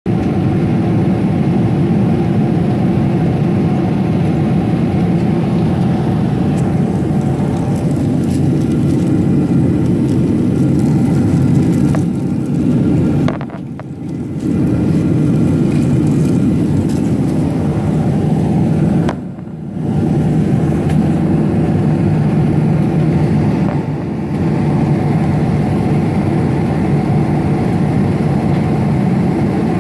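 Jet airliner cabin noise next to the wing-mounted turbofan engine on approach: a steady, loud, deep rush of engine and airflow. It dips briefly twice around the middle.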